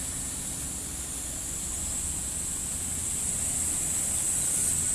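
Outdoor roadside ambience: a steady high-pitched hiss over a low vehicle rumble that grows gradually louder.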